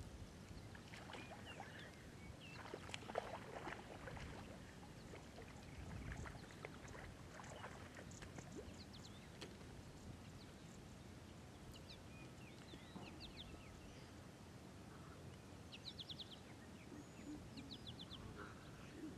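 Quiet outdoor ambience with faint scattered bird calls, including a few short rapid chattering calls in the second half.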